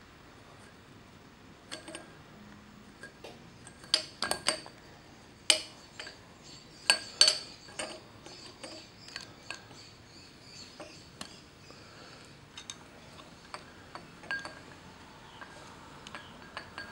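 Irregular clicks and clinks of a motorcycle speedometer gauge and its chrome metal housing being handled and worked apart by hand, with its wire connectors; the sharpest clinks come in a cluster about four to seven and a half seconds in.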